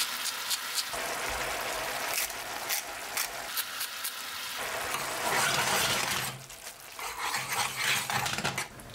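Brown mushroom sauce bubbling hard in a frying pan, an even sizzle full of small popping bubbles as it reduces and thickens. Near the end a metal spoon stirs it, scraping and clinking in the pan.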